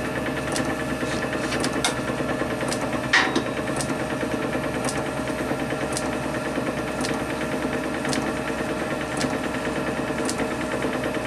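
Steady hum of a running electric machine motor, with faint clicks every second or so and a single knock about three seconds in.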